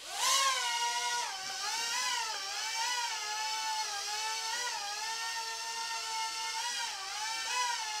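SYMA TF1001 toy RC helicopter's electric motors and rotors spinning up on automatic takeoff, rising sharply in pitch, then a steady high whine that wavers up and down as it settles into a hover.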